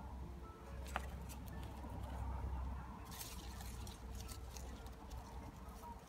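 Faint handling noise from a handheld camera outdoors: a low rumble with a sharp click about a second in, then a run of small scratchy clicks and rustles.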